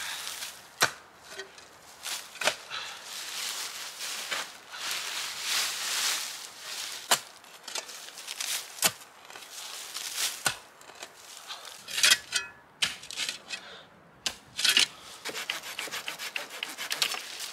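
A metal spade digging into stony soil and leaf litter: a sharp scraping strike each time the blade is driven in, about one every one and a half to two seconds, with the rustle and scrape of earth and leaves levered out between. Near the end comes a quicker run of short scraping strokes.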